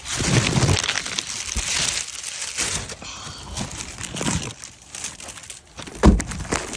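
Crinkling and rustling handling noise, with a sharp knock about six seconds in.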